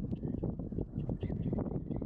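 Wind buffeting the microphone: an uneven low rumble with rapid gusty jolts.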